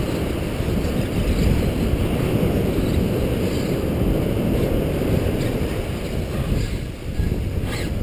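Wind buffeting a GoPro's microphone on a surf beach: a steady low rumble, with waves washing behind it.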